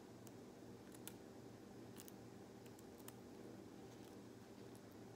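Faint snips and clicks of small scissors cutting a plastic drinking straw: about half a dozen irregular clicks over a steady low hum.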